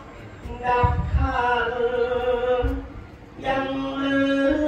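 A Buddhist monk's voice chanting in long, melodic sung phrases, holding notes and sliding between them, with short breaks between phrases.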